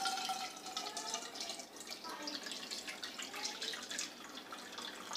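Water being poured from one bowl into another over soaked split moong dal, a steady trickle and splash as the loosened husks are decanted off.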